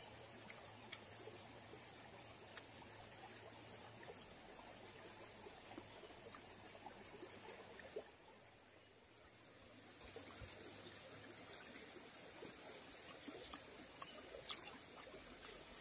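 Faint trickle of a shallow river flowing over rocks, with scattered small clicks that come more often near the end.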